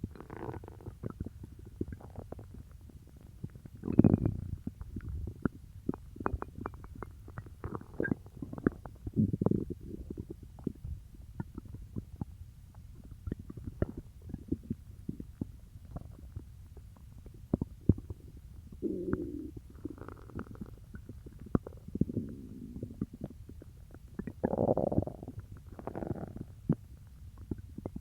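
Human stomach and intestines gurgling and rumbling while digesting peanut butter: irregular gurgles over many small clicks and pops, the loudest about four seconds in and another strong one near the end.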